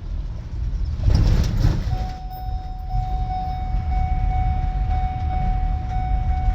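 Low, steady rumble of a vehicle driving, with a brief louder rush of noise about a second in. About two seconds in, a steady high-pitched tone starts and holds.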